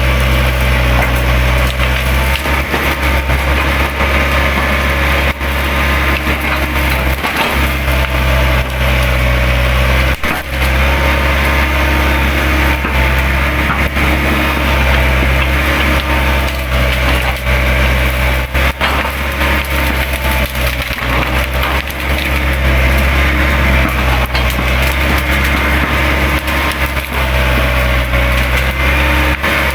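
Hydraulic excavator's diesel engine running steadily under load, with a high hydraulic whine, while the machine rips through scrub: frequent cracking and snapping of branches and brush throughout.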